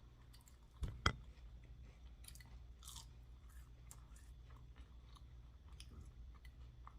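A person chewing food close to the microphone, with small crunches and mouth clicks. About a second in come two sharp clicks, the loudest sounds.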